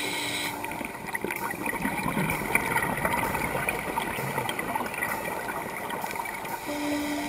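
Underwater water noise with gurgling and scattered crackles, picked up by a submerged dive camera. A steady musical tone comes in near the end.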